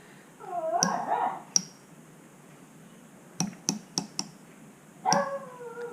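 Rotary switch clicking through its detent positions as it is turned: several sharp, separate clicks a fraction of a second apart. A quieter voice-like sound comes in twice, about half a second in and again near the end.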